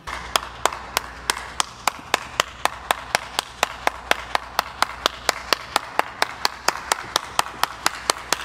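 One person clapping hands steadily, about four claps a second, with no voices over it.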